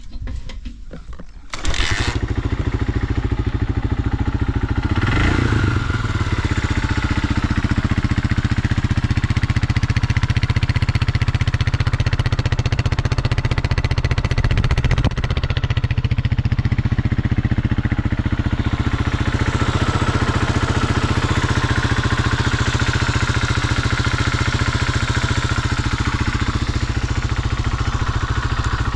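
Honda XL250S air-cooled single-cylinder four-stroke engine. After a few clicks it starts running about two seconds in, then idles steadily, blipped up briefly around five seconds and again around fifteen seconds in. It runs without unusual noises.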